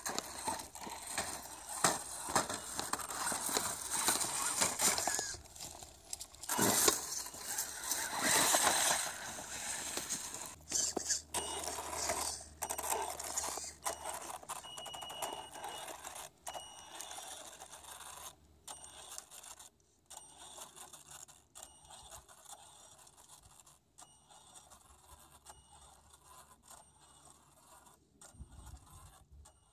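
Crackling and rustling in dry leaf litter with scrapes and ticks, loudest in the first ten seconds, then fainter with a faint low hum.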